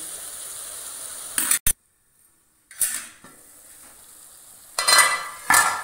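Onion-tomato masala sizzling in oil in a steel kadhai, cooked to the point where the oil separates, broken by a sudden short gap; then a few sharp metal clanks of the steel lid and spatula against the pan.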